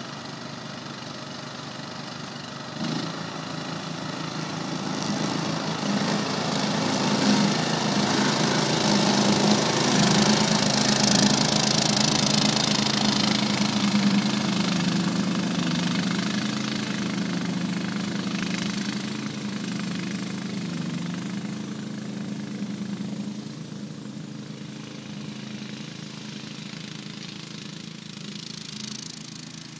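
Ride-on mower's 16 hp single-cylinder Briggs & Stratton Intek engine running steadily while mowing thick grass. It grows louder toward the middle, as the mower comes closest, then fades again.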